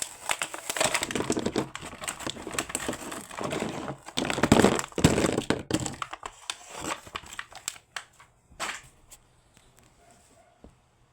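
Toy packaging being crinkled and torn open by hand, a dense crackling with sharp clicks. It thins out to a few scattered clicks about eight seconds in.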